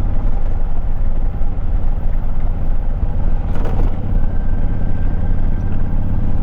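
Motorcycle engine idling with a steady, even low rumble, with a brief rustle about three and a half seconds in.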